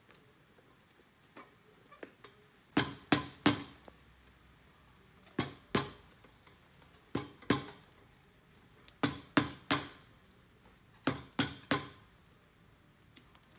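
Cobbler's hammer striking the new sole of a cowboy boot held on a shoe stand. The blows come in quick runs of two or three, about every two seconds.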